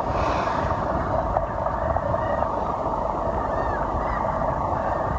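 Steady rushing noise of a boat on the water, with a low rumble underneath. A few faint, high, arching calls come in a little past the middle.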